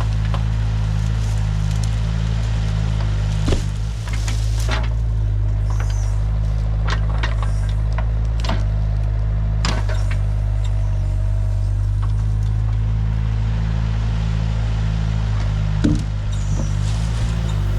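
An engine running steadily at a constant speed, with scattered knocks and clunks over it.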